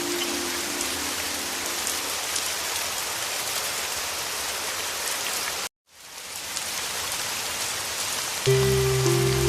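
Heavy rain falling with a steady hiss. A soft low music chord fades out about two seconds in, the sound cuts out completely for a split second just past the middle before the rain fades back in, and a low sustained music chord comes in near the end as the loudest thing.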